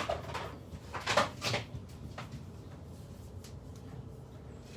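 Handling clatter from moving a window air conditioner and its power cord: a few knocks and scrapes in the first two seconds, then a low steady hum.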